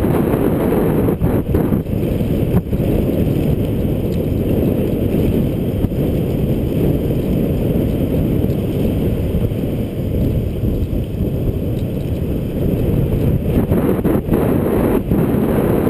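Steady loud rush of wind on the microphone of a camera riding on a bicycle coasting fast downhill, with a few brief clicks near the start and near the end.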